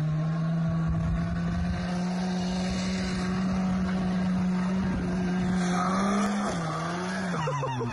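Snowmobile engine running hard as the machine charges up and jumps off a snowbank, its note climbing slowly. About six and a half seconds in, the pitch dips and rises again, then falls near the end.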